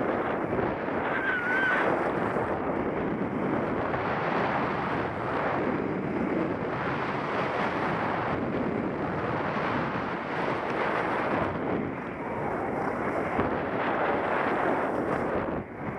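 Wind rushing over the microphone of a skier's helmet camera, mixed with skis scraping and hissing over packed snow on the way down the piste; an even rushing noise throughout.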